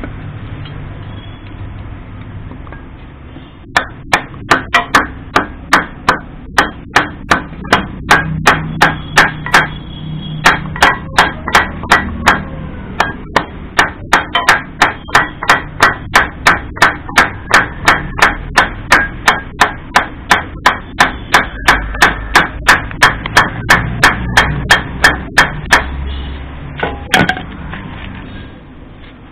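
Rapid, evenly paced knocks, about two or three a second, of a hand-held block striking an old Royal Enfield Bullet's cast-iron cylinder head to break it loose from the barrel. The knocking starts a few seconds in and stops near the end, with one last knock after it.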